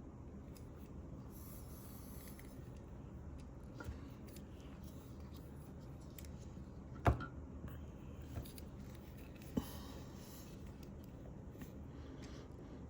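A few small sharp clicks and taps over a faint steady hum, the loudest about seven seconds in.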